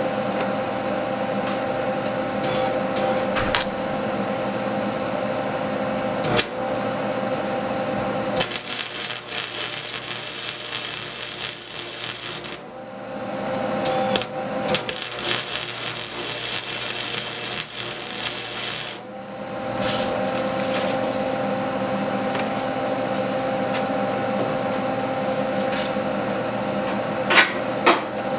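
Electric arc welding: two welding passes, about four and five seconds long, with the arc giving a steady crackling hiss. Between and around them a steady machine hum with a couple of fixed tones.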